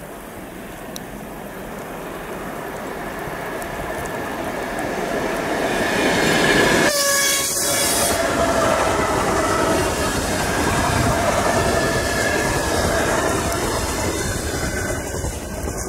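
TGM4 diesel-hydraulic shunting locomotive running, its engine getting steadily louder over the first six seconds and then holding, with a wavering whine. About seven seconds in comes a brief loud burst lasting about a second.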